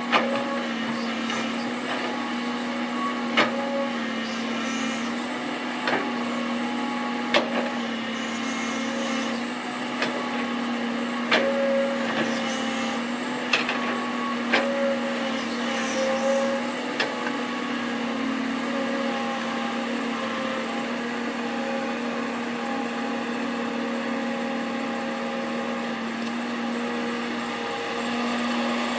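Excavator's diesel engine running at a steady pitch, with sharp knocks every second or few during the first half or so, then running on without them.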